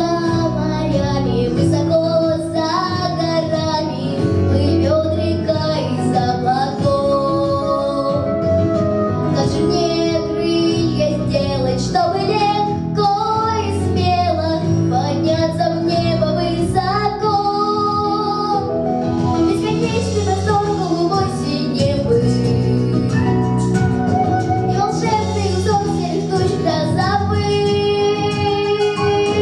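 A female voice singing a song, with a melody that moves up and down over instrumental accompaniment.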